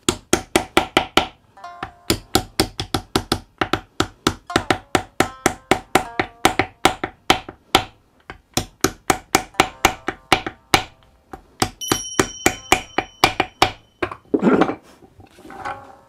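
Small wooden mallet knocking wooden kisen clamps onto the edge of a shamisen skin: rapid sharp wooden knocks at about three a second, with short gaps, and a heavier, duller knock near the end.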